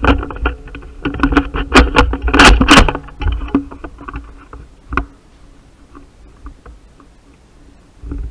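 A player on the move in airsoft gear: a rumble of footsteps and kit rubbing on the microphone, with a rapid clatter of sharp knocks for the first three seconds and a single sharp knock about five seconds in.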